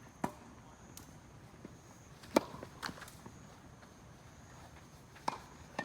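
Tennis ball being struck and bouncing on the court: a few sharp pops a second or more apart, the loudest about two and a half seconds in.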